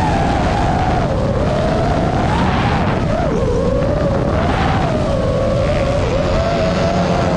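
FPV racing drone's motors whining, the pitch wavering up and down with the throttle, over a rough rush of wind.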